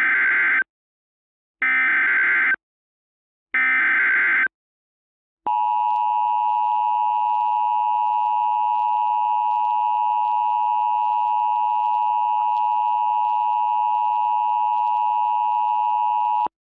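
Emergency Alert System alert opening. Three one-second data bursts of the SAME header play about two seconds apart. Then the steady EAS attention tone holds for about eleven seconds and cuts off suddenly.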